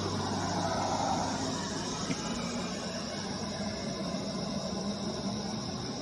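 A steady, high-pitched chorus of insects over the sound of road traffic, with a vehicle passing in the first couple of seconds.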